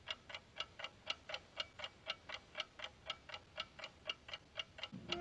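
A clock ticking steadily and softly, about four to five ticks a second. Near the end, quiet sustained music notes come in.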